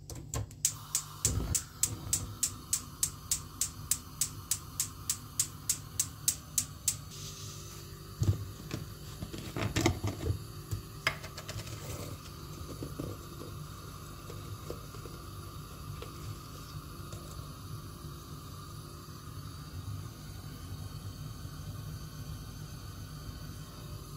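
Gas stove burner's spark igniter clicking about three to four times a second for some six seconds, with a steady gas hiss that keeps going after the clicking stops as the burner stays lit. A few knocks and clatters follow from about eight seconds in.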